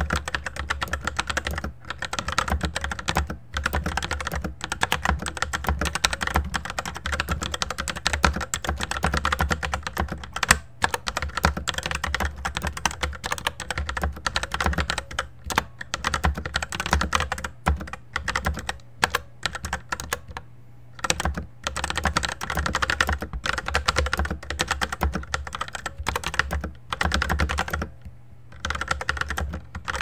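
Fast, continuous typing on a Fantech MaxPro MK853 full-size mechanical keyboard with red linear switches: a dense clatter of keystrokes, broken twice by short pauses near the end.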